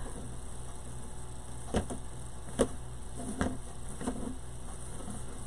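A few light clicks and taps from small craft pieces being handled and placed on a wreath, three of them about a second apart near the middle, over a steady low hum.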